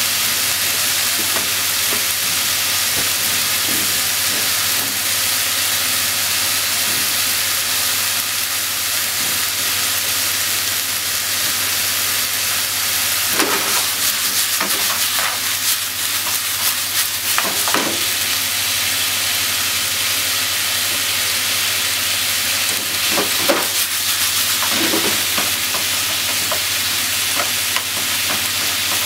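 Pork, carrot and green pepper stir-frying in a frying pan: steady sizzling, with clattering strokes a few times in the second half as the pan is tossed and the food stirred with chopsticks.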